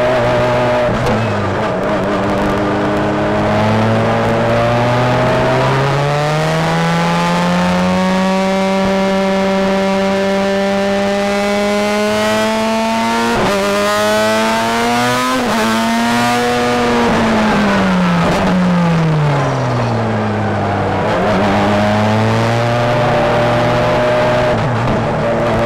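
Star Mazda race car's Mazda rotary engine, heard onboard at full throttle. Its pitch climbs and holds high along the straight, drops steeply under braking about two-thirds of the way through, and rises again near the end as the car accelerates.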